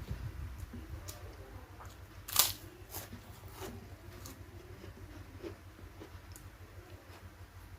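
Close-up eating: chewing with a few crisp crunches, one loud crunch about two and a half seconds in.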